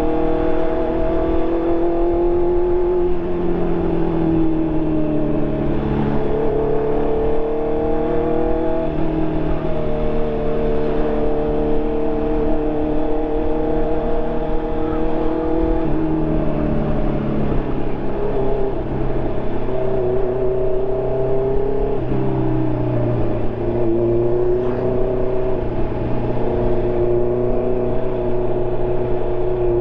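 2020 Honda CB650R's inline-four engine running through an SC Project aftermarket exhaust while riding, a steady engine note that shifts in pitch a few times as speed changes.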